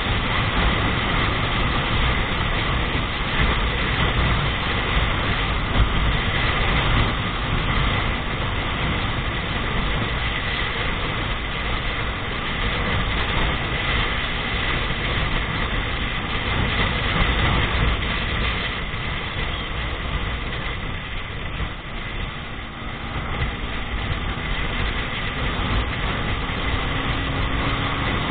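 Steady rush of wind and road noise from a vehicle travelling along a paved highway at speed, with a faint rising whine near the end.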